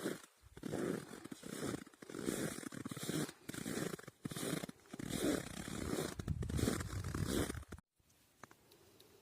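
Footsteps squeaking and crunching on hard-frozen snow, one step after another at walking pace. The steps stop abruptly about eight seconds in.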